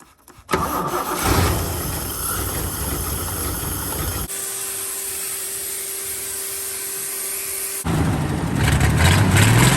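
Three abruptly cut clips: a vehicle engine running, then a steady hiss with a single held tone, then an engine revving up and down.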